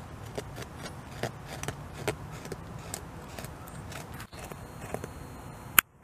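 North American beaver gnawing a large poplar trunk: short, sharp crunching clicks of its incisors biting into the wood, two to three a second, with one much louder click near the end.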